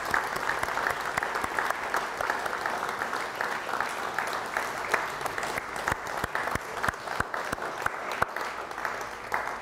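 Audience applauding: dense clapping from many hands, with single claps standing out more in the second half.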